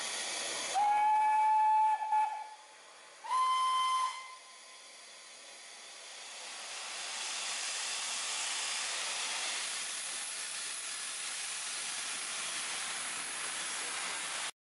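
Steam locomotive whistle sounding two blasts: the first lasts about a second and a half, the second is shorter and a little higher. A steady hiss of steam from the engine's cylinder drain cocks then builds up and holds, and cuts off suddenly near the end.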